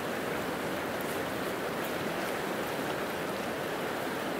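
Steady rush of a fast, rocky mountain stream running through pocket water over boulders.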